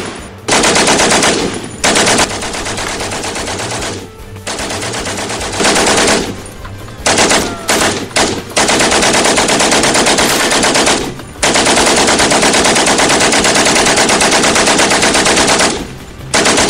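Machine gun firing a string of long, rapid bursts with short breaks between them; the longest burst runs about four seconds.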